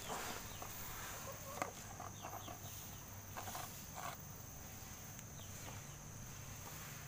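Faint, scattered clucks of chickens, with the soft rustle of a small cardboard snack box being handled and opened by hand.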